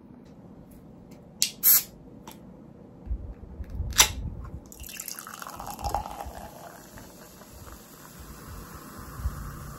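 A Coca-Cola can's ring-pull cracks open sharply about four seconds in, after a couple of knocks from the can being handled. Cola then pours into a glass and fizzes with a steady hiss.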